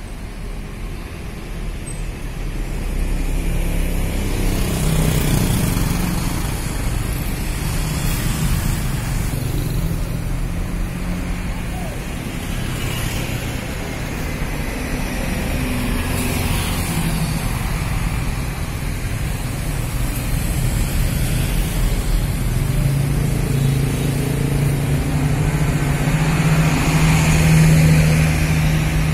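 Hino RN285 coach's diesel engine running at low speed as the bus creeps past close by in slow traffic, with more bus and traffic engines behind it. The engine noise swells a few seconds in and grows loudest near the end as the next buses draw near.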